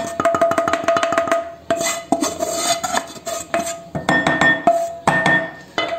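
Kitchen utensil scraping and knocking against a pan as dry-roasted rice flour is transferred into a bowl: quick runs of clinks and scrapes with a few louder knocks.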